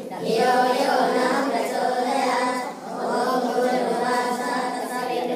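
A group of voices singing a devotional chant together, holding long notes, with a brief break near the middle.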